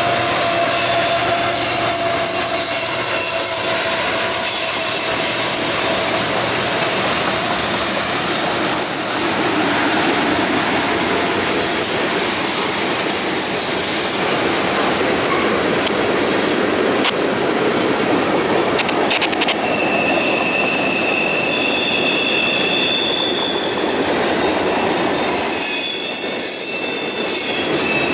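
CSX freight train rolling past: steel wheels clattering on the rail joints and squealing in high tones as tank cars and hoppers go by. A mid-train diesel locomotive's engine passes and fades in the first few seconds.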